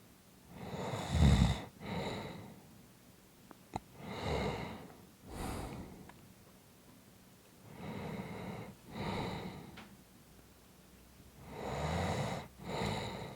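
A person snoring: four breaths about four seconds apart, each sounding in two parts, a longer rasping snore and then a shorter one. The first, about a second in, is the loudest and deepest.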